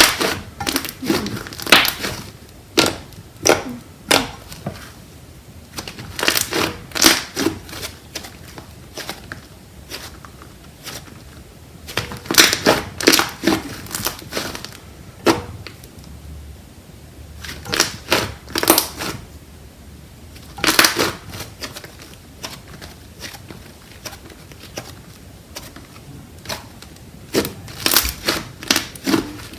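Slime being squished and pressed by hand, giving bursts of sharp crackling clicks and pops that come in clusters every few seconds.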